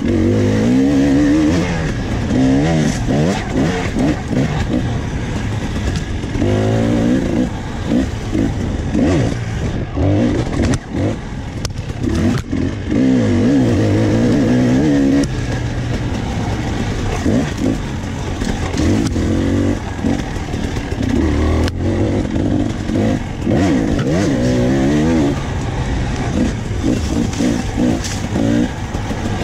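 Dirt bike engine revving up and falling back again and again as the bike is ridden along a twisty trail, with a few sharp knocks and rattles from the bike over rough ground.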